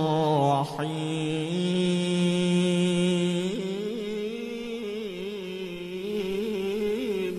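A male qari reciting the Qur'an in the melodic tilawah style, drawing out one long held note. The pitch dips about a second in and then returns, and it turns through wavering melismatic ornaments in the second half.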